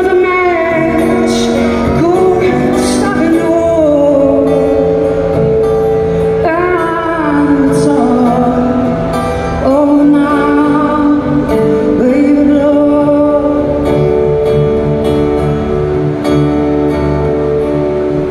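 Live band playing a slow folk-rock song: strummed acoustic guitar and organ, with a woman singing the lead line over held organ chords.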